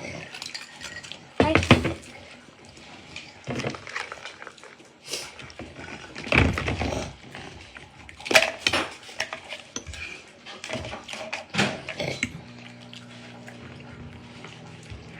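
Dishes and cutlery clattering and knocking as plates are handled at a breakfast table, in irregular bursts. A steady low hum starts near the end.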